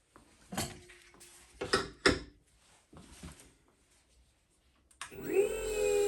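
A few knocks of the knife and tools being handled, then about five seconds in an electric flat hone sharpening machine is switched on, its motor spinning up briefly and settling into a steady hum with a high whine.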